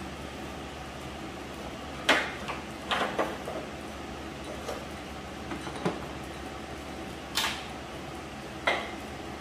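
A handful of sharp metal clinks and clanks from tools and engine hardware being handled in the engine bay, the loudest about two seconds in, over a steady low hum.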